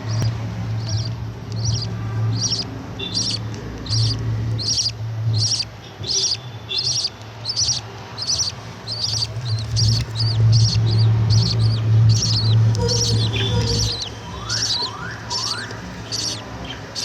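Budgerigar chicks chirping, short high calls repeating about twice a second, with a few gliding calls near the end, over a steady low hum.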